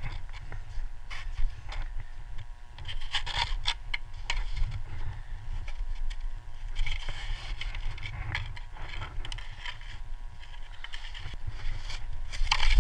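Skis sideslipping and edging down a steep couloir, their edges scraping and hissing on firm snow in uneven bursts over a steady low rumble.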